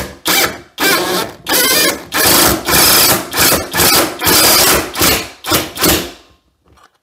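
Alloyman 20V brushless 1/2-inch cordless impact wrench hammering a lag screw into a wall, run in about a dozen short and longer bursts of the trigger; it stops about six seconds in.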